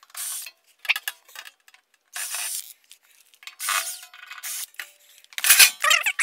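Cordless drill/driver running in short bursts of about half a second, backing screws out of a compressor's sheet-metal side panel, four or so times. Near the end, loud metallic clanking as the panel is pulled off.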